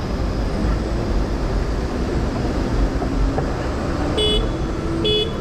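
City street traffic running under a steady low rumble of wind on the microphone, with two short beeps about a second apart from a vehicle near the end.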